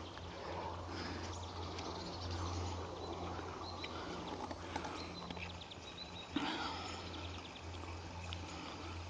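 Quiet outdoor background noise with a steady low hum and a few faint, short high chirps, and one soft knock about six and a half seconds in.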